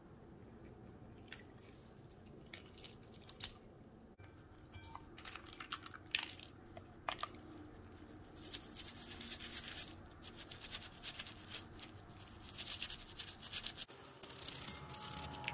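Toothbrush bristles scrubbing a small plastic puzzle piece in soapy water, in quick repeated scratchy strokes that start about halfway through. Before that come a few light clicks and taps as the small plastic pieces are handled.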